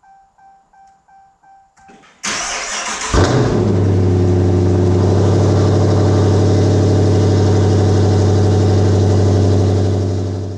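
A car's warning chime repeats faintly, then the Dodge Charger's Hemi V8 cranks for about a second, catches with a brief flare and settles into a steady loud idle. The exhaust runs through SRT/Hellcat-style headers and a gutted catalytic converter.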